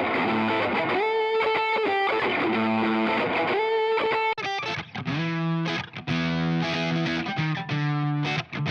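Distorted electric guitar played through a drive preset on an IK Multimedia TONEX MAX amp-modelling pedal. Held high notes slide up into pitch in the first half, then from about halfway the playing turns to short, choppy chords with brief gaps between them.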